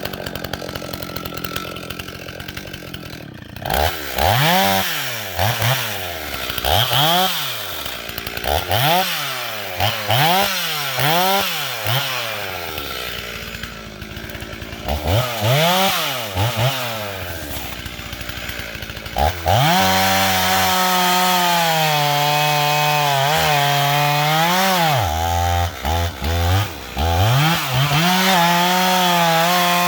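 Rebuilt early Stihl 044 two-stroke chainsaw revved in about a dozen short rising-and-falling throttle blips, then held at high revs for the last third, its pitch dipping and recovering as it works into the log.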